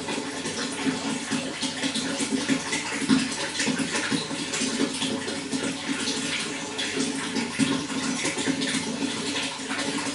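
Running water flowing steadily, a continuous splashing rush with no breaks.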